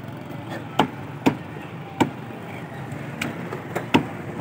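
Heavy cleaver chopping raw chicken on a thick wooden log block: about five sharp chops at uneven intervals, over a steady low hum.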